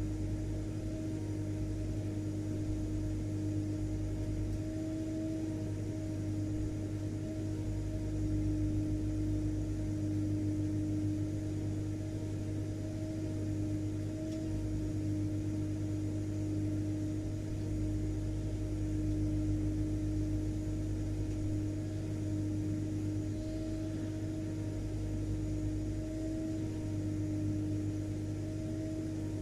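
Vacuum cleaner motor running steadily: an even hum with a constant rush of air, without change.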